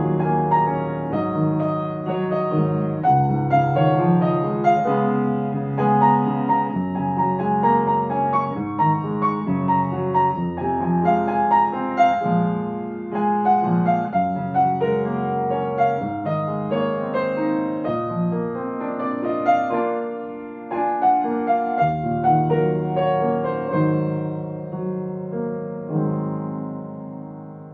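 Upright piano playing a slow, gentle ballad: a melody over broken chords and bass notes. Near the end the playing thins out and a final chord rings and dies away.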